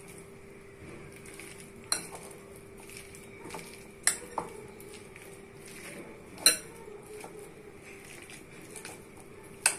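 Metal spoon stirring mashed potato chokha in a glass bowl, with five sharp clinks of the spoon against the glass, the loudest about six and a half seconds in. A faint steady hum runs underneath.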